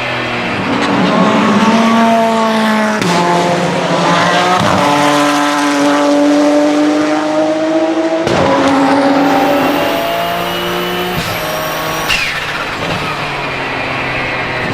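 Twin-turbo 3.9-litre flat-six of a Porsche 997 GT2 RSR under hard acceleration, rising in pitch through three quick upshifts of its sequential gearbox. Near the end a high turbo whistle sits over the engine and drops away as the driver lifts off, after which the engine runs lower and steadier.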